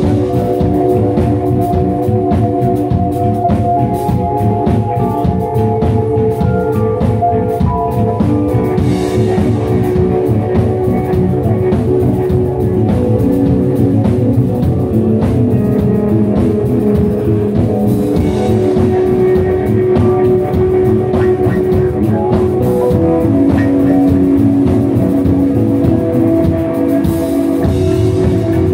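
Live rock band playing an instrumental passage: electric guitar, bass guitar, keyboards and drum kit, loud and steady, with held melodic notes over a busy drum beat.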